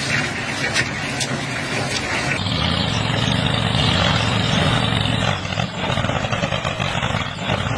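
A motor running steadily, growing louder and fuller about two and a half seconds in.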